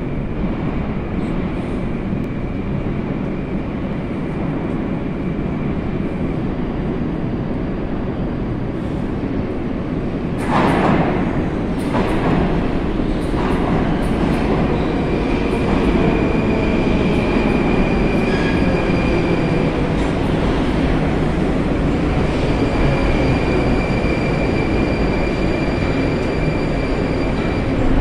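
Moscow metro 81-740 Rusich train approaching through the tunnel and pulling into the station. Its rumble runs continuously and turns suddenly louder about ten seconds in. Steady high whines come and go, a tone falls as the train slows, and it is loudest near the end as the cars reach the platform.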